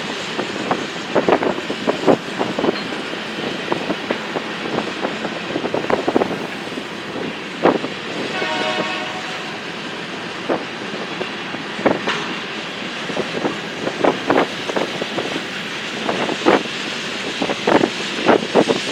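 A train rolling past, its wheels clacking irregularly over rail joints, with a short train horn blast about halfway through.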